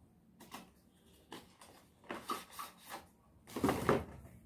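A small cardboard earphone box being opened by hand, its inner tray sliding out: a handful of short scrapes and clicks of cardboard and packaging, the loudest about three and a half seconds in.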